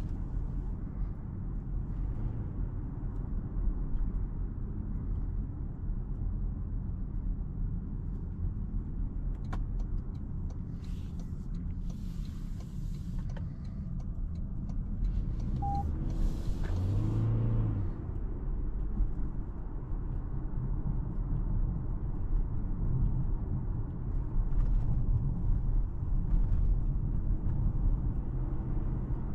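Car driving on the road: a steady low rumble of engine and road noise. A hiss comes up twice, about twelve and about seventeen seconds in, the second time with a short rising hum.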